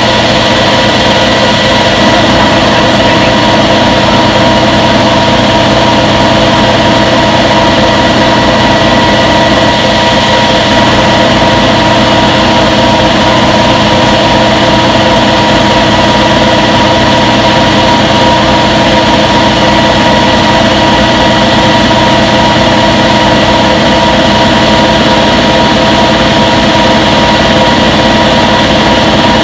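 Front-load washing machine running in its spin cycle: a loud, steady machine whir with several constant humming tones, unchanging throughout.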